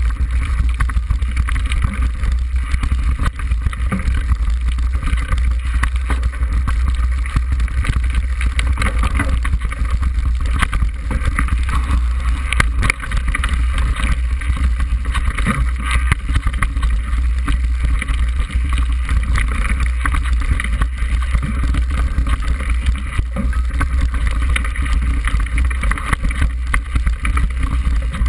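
Mountain bike descending a rough, stony moorland track: wind rumbling on a bike-mounted camera's microphone, with a steady rattle and many small knocks from the bike over the stones.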